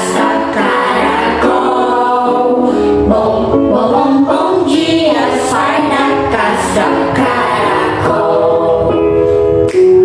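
Music: a song with voices singing a melody over an instrumental backing.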